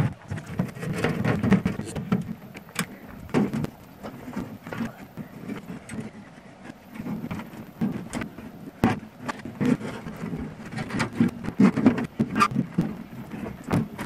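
Irregular knocks, clanks and scrapes as a small sheet-steel wood stove and a copper tubing coil are handled, shifted and tipped onto their side on dirt ground.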